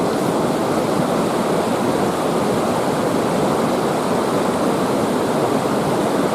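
Small mountain stream's water rushing steadily, an even unbroken rush.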